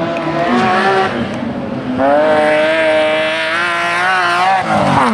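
Autocross race car engine, a BMW E30, revving hard on dirt. Its pitch climbs for a couple of seconds and then falls sharply near the end.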